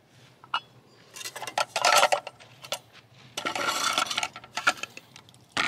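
Metal camping cook pot and lid clinking and scraping as the nested stove kit is unpacked from the pot: a few single clicks and two longer stretches of rattling, about a second each.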